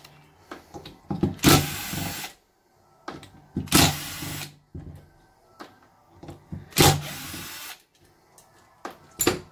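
Cordless drill-driver backing out the screws that hold the rectifier and regulator in the rear housing of a Denso hairpin alternator: three runs of about a second each and a short one near the end, with small clicks of screws and parts being handled between them.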